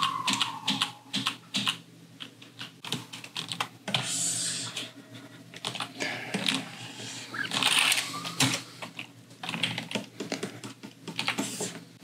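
Computer keyboard clicking in quick, irregular taps as shortcuts are pressed, with a couple of brief soft swishes about four and eight seconds in.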